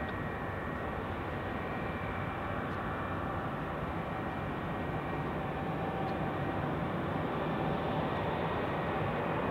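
Embraer E195-E2 jet airliner's Pratt & Whitney geared turbofans running at takeoff power during the takeoff roll: a steady jet rush with a thin high whine, growing slightly louder near the end.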